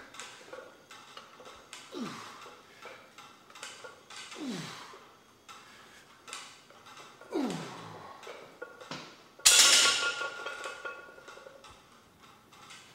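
A weightlifter's strained groaning breaths, four of them, each falling in pitch, about every two to three seconds. About nine and a half seconds in comes a loud clank with a short metallic ring, the loudest sound here.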